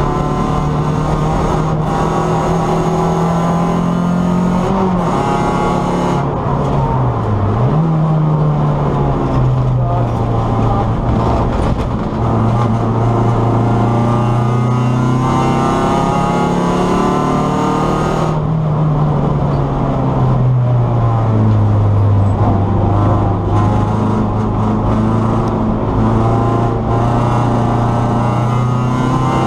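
Race car engine heard from inside its stripped, roll-caged cabin, running hard on track. Its pitch holds high, drops sharply and climbs again about a quarter of the way in, and falls away around two-thirds of the way through before steadying.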